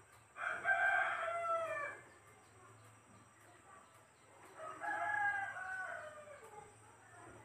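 A rooster crowing twice, each crow about a second and a half long and falling in pitch at the end; the second is a little fainter.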